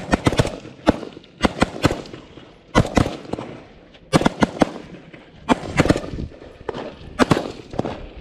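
Rifle fire from several shooters: short strings of quick semi-automatic shots, two to four at a time, coming about every second.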